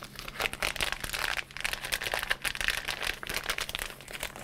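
Clear plastic zip-lock bag crinkling as it is handled and opened to get a small coil spring out, a dense run of crackles that fades near the end.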